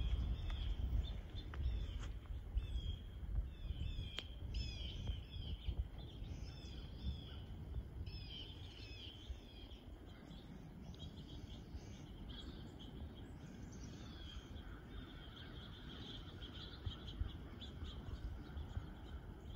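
Wild birds calling in winter woods: a run of short, high chirps that sweep downward through the first half, then a busier, fainter chatter in the second half, over a low steady rumble.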